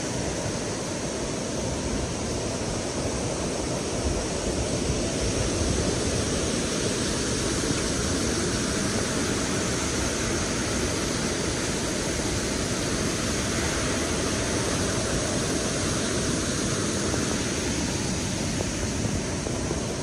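Steady rush of water as the Berdan River pours over the Tarsus Waterfall and through rocky rapids.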